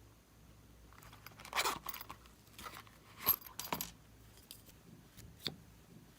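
Slime being worked by hand, giving a run of sharp crackling pops and clicks, loudest about a second and a half and three seconds in, with one last click near the end.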